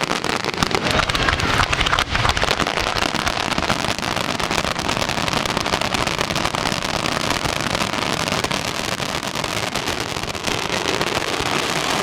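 Fireworks going off in a dense, continuous crackle of many rapid small pops.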